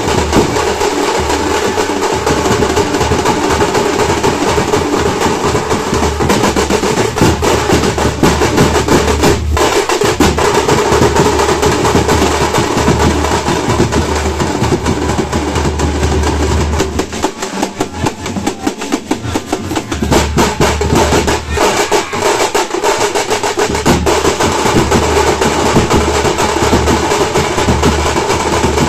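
A troupe of thappu (parai) frame drums beaten with sticks in a loud, dense, fast rhythm of rolling strokes. The playing drops back briefly about two-thirds of the way through, then comes back at full force.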